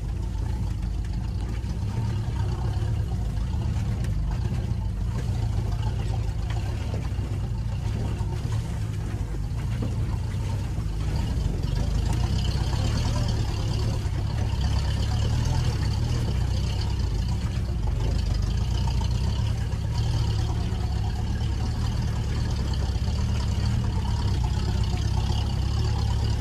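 Land Rover 4x4's engine running steadily as the vehicle drives an off-road forest track, mostly low in pitch. A higher whine grows stronger from about halfway.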